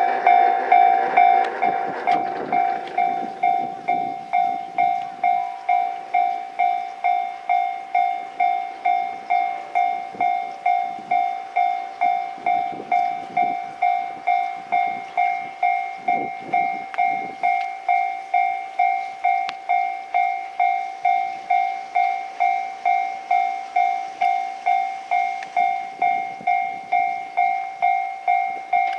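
Japanese level-crossing warning bell ringing in steady repeated dings, about two a second. It signals that the barrier is down for an approaching train.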